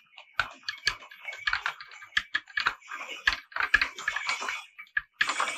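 Horse-drawn wooden cart going along a paved street: the horse's hooves clopping and the cart rattling, in irregular clicks and knocks several times a second.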